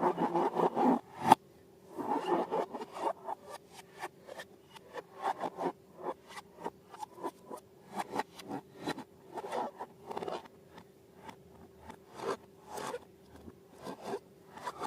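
Close-up scraping and rubbing from hands working slime and balloons, in quick irregular strokes, dense at first, with a sharp click just after a second in, then short scratchy strokes with gaps between them, over a faint steady hum.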